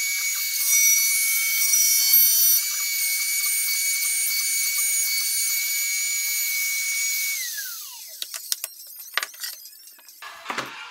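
DeWalt router on a Shapeoko 3 CNC spinning at high speed with a steady high whine, carving a wood board, louder for a couple of seconds near the start. About seven seconds in the spindle switches off and winds down in a falling whine, followed by a few knocks and clatters as the board is handled.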